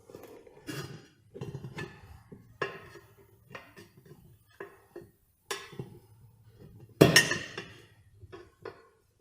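Metal tools clinking and knocking against a lawn mower wheel rim as a new tire's bead is pried on over the rim. About a dozen irregular sharp clinks, the loudest about seven seconds in, with a short ring after it.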